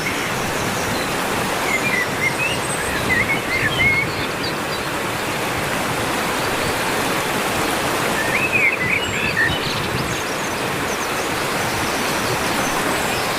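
Large waterfall in full flood, a steady heavy rush of water. A bird chirps a few times about two to four seconds in and again about nine seconds in.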